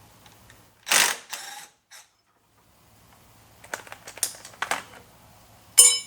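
Hand tools working metal fittings while a stubborn oil-cooler line is loosened. There is a loud scraping rattle about a second in, a run of irregular clicks in the middle, and a sharp ringing metal clank near the end.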